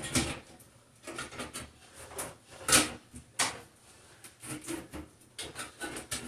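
White plastic light housing of a bathroom exhaust fan being pushed and worked into the fan's housing in the ceiling: a run of plastic clicks and knocks, the two loudest coming close together about three seconds in.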